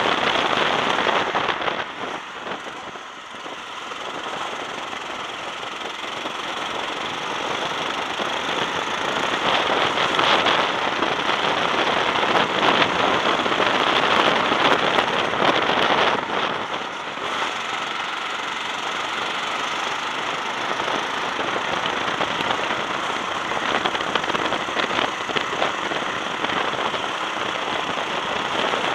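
Go-kart engine running on track, heard from the driver's seat with wind rushing over the microphone. The sound drops about two seconds in, then builds back up over the following several seconds.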